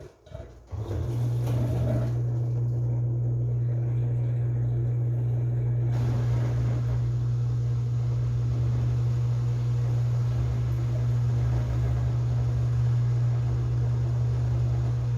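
Washing machine running with a steady low hum and rumble, which starts about a second in.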